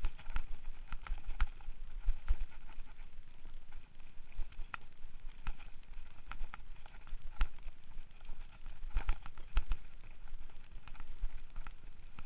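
Mountain bike clattering over a bumpy dirt trail: irregular knocks and rattles as the wheels hit bumps, over a steady low rumble of wind on the microphone.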